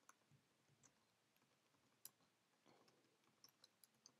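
Faint, irregular computer keyboard clicks from typing, over near silence.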